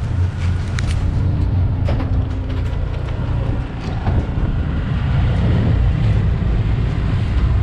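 Twin Suzuki 250 four-stroke V6 outboard motors running hard with the boat under way, under a heavy rush of wind and water, with a few sharp knocks. The left engine is said not to rev up fully.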